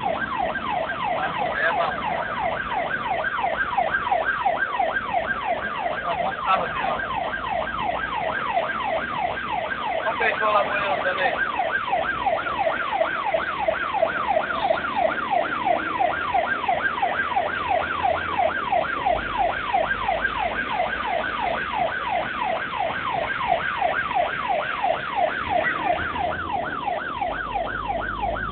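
Ambulance siren sounding continuously in a fast yelp, its pitch sweeping up and down about three times a second, heard from inside a vehicle. About ten seconds in another short tone briefly joins it.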